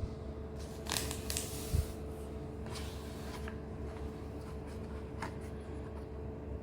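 A few brief rustling and scraping handling noises over a steady electrical hum.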